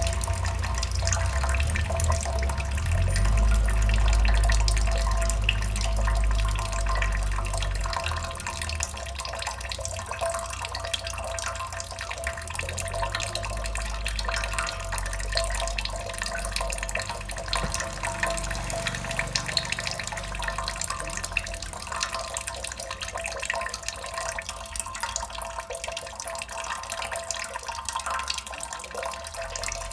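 Water dripping and splashing continuously, many small drops landing in water like a running tap into a sink. A low rumble underneath fades after the first eight seconds or so.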